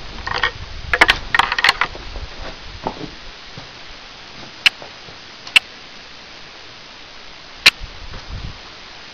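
Footsteps crunching over loose brick rubble and stones, a cluster of crunches and knocks in the first two seconds, then three single sharp clicks spread out over the rest.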